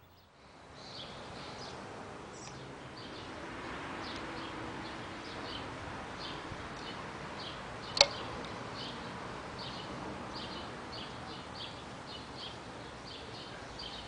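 Outdoor ambience: a steady background hiss with short high chirps repeating about twice a second. A single sharp click about eight seconds in.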